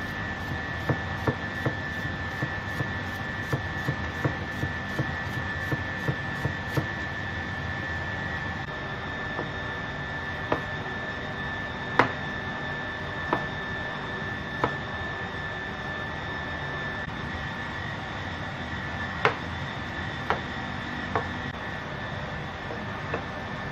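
Chef's knife knocking on a plastic cutting board while slicing: a quick run of cuts through a cucumber in the first several seconds, then slower single cuts through cherry tomatoes. Underneath runs a steady rushing background noise with a faint high whine.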